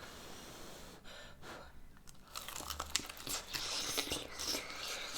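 Crunching and chewing of a crispy breaded chicken wing, close up: quiet at first, then a dense run of crackling crunches starts a little over two seconds in.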